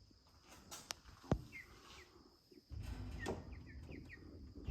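Chickens making soft, short chirping calls, several in quick succession in the second half. There is a single click about a second in, and a low rumble comes in just before the three-second mark.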